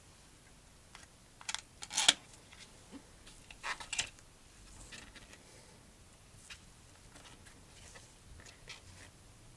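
Paperboard wrap around a charging cable handled and unfolded by gloved hands: scattered papery rustles and snaps, the loudest about two seconds in and another pair around four seconds, then a few faint ticks.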